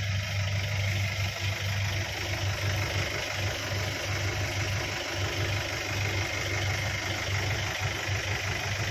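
Mahindra Tourister minibus engine idling, a steady low hum heard from inside the cabin.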